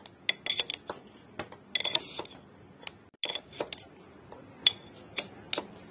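Steel open-end spanner clinking on the top cap nut of a KTM Duke's front fork as it is set on and turned in short strokes to loosen the cap. Clusters of sharp metallic clicks with a ringing note come about every one and a half seconds, and single louder clinks follow in the second half.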